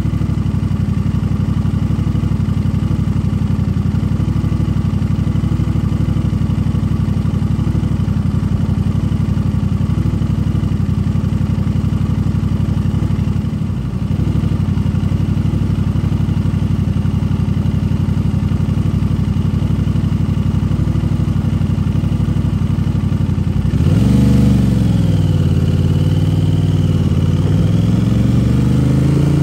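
Aprilia RS 660's parallel-twin engine running through a cheap aftermarket exhaust, holding steady revs with a brief dip about halfway. About 24 seconds in, the revs jump, sag, then climb again as it accelerates.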